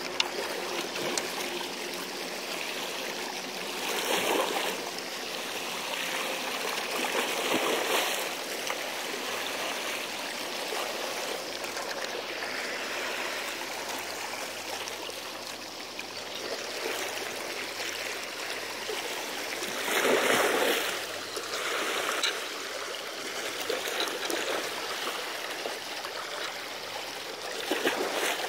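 Seawater washing against a sea embankment: a steady rush of water with louder surges about four, eight, twenty and twenty-eight seconds in.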